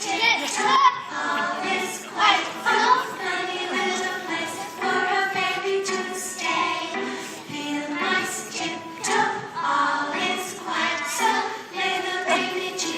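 Children's choir singing together, several young voices holding and moving between sung notes.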